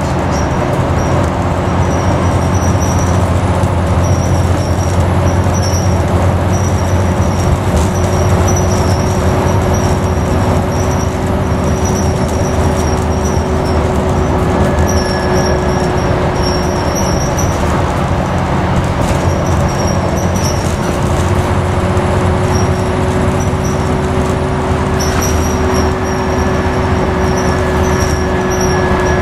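Alexander Dennis Enviro400 (E40D) double-decker bus heard from the upper deck while under way: the engine and drivetrain run at a steady pace under road noise. Short, high squeaky rattles from the bus body come and go on top.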